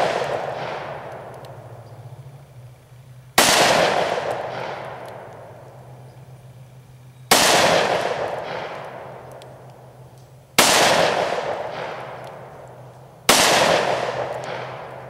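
Taurus Judge revolver firing .410 shotgun shells: four shots a few seconds apart, each echoing away over about three seconds, with the fading tail of a shot fired just before at the start. A faint low steady hum runs underneath.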